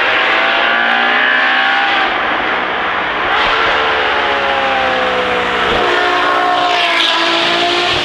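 Ferrari GTC4Lusso with a Novitec aftermarket exhaust driving past, its engine loud and its pitch climbing and dropping several times as the car accelerates and changes speed.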